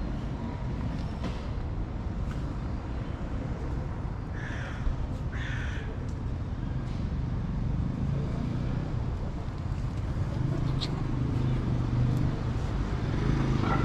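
Steady low rumble of road traffic, with two short harsh calls about four and a half and five and a half seconds in.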